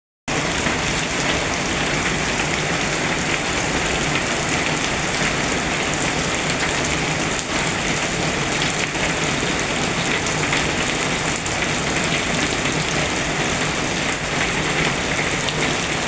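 Steady heavy rain falling on surfaces, a dense even hiss that starts suddenly just after the beginning.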